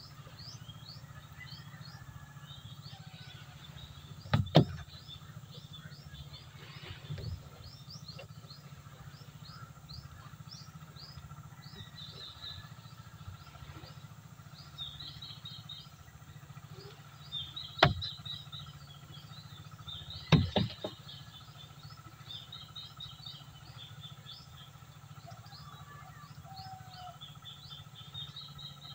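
Small birds chirping rapidly and repeatedly over a steady low rumble, with a few sharp knocks: one about four seconds in and two more past the middle.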